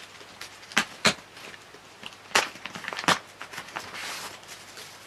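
Clear plastic wrapping film crinkling and crackling as hands tear it open, with several sharp crackles, the loudest about a second in and again about two and a half seconds in.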